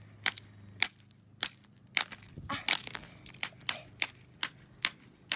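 Ice being struck and chipped: about a dozen sharp, irregular knocks, two or three a second, as a frozen block is broken apart to free a toy locked inside it.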